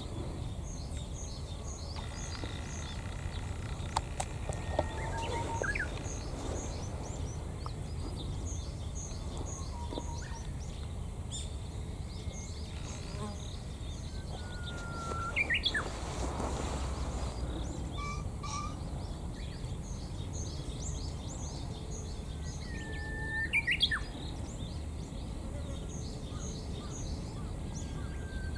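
Male green pheasant (Japanese pheasant) crowing and drumming its wings in its 'horouchi' display, loud about three times, a few seconds in, in the middle and near the end, among small birds chirping high and steadily.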